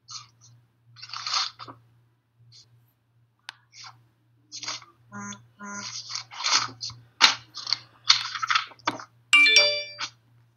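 Irregular bursts of crackly noise over a steady low hum, with two short pitched tones about five seconds in and a brief electronic chime of several tones a little after nine seconds.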